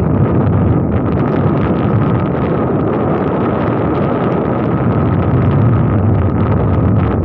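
Boat engine running steadily while the boat is underway, with wind buffeting the microphone.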